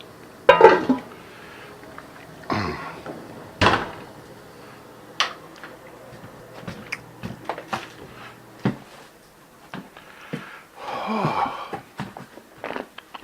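Irregular knocks, clicks and clatters of household objects being handled in a small room, the loudest about half a second in.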